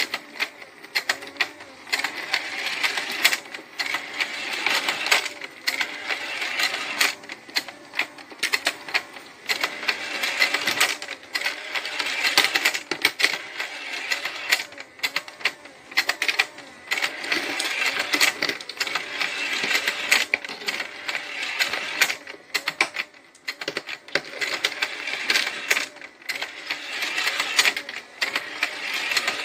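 Plastic penguin-escalator fishing-game toy running: its motor-driven stairs and gears clatter with a rapid, unbroken run of plastic clicks.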